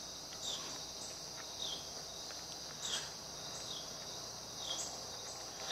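A steady high-pitched insect chorus, with a short falling chirp repeating about once a second and a few faint clicks.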